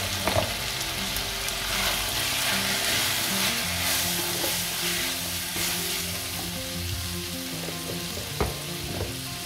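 Meat frying and sizzling in hot oil in a karahi with onion and spices, being stirred, with a couple of sharp knocks against the pan.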